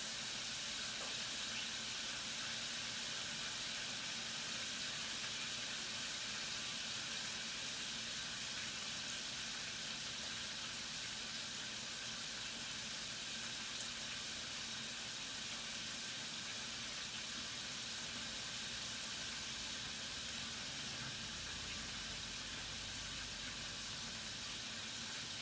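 Battered chicken wings frying in a deep fryer: a steady, even sizzle of hot oil.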